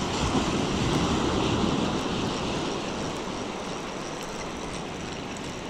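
Sea waves washing onto the beach: a steady rush of surf that swells over the first couple of seconds and then eases off.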